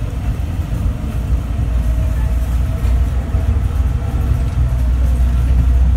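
Bombardier Innovia APM 100 light-rail car running along its guideway, heard from inside the car: a steady low rumble from its rubber tyres and drive, growing slightly louder in the second half.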